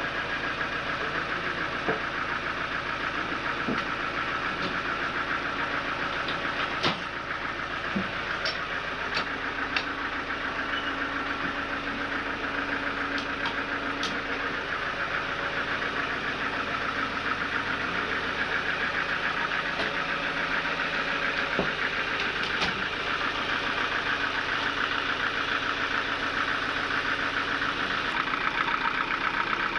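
Sawmill machinery running steadily with a constant mechanical hum, broken by scattered sharp clicks and knocks. A low hum drops out near the end.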